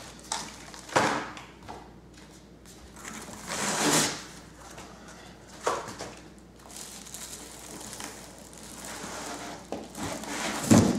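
Cardboard box and packing material being handled, with rustling and scraping that swells and fades several times, and a sharp knock near the end.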